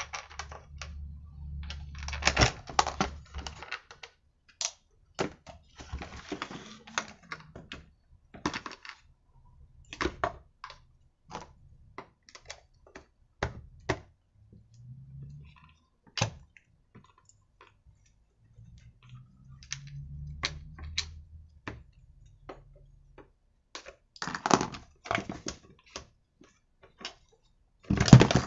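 Irregular clicks and knocks of hard plastic and metal parts as a petrol brushcutter's recoil starter housing and plastic fuel tank are handled and fitted onto the engine on a workbench. The knocks bunch into short clatters a couple of seconds in, about three-quarters of the way through, and at the very end.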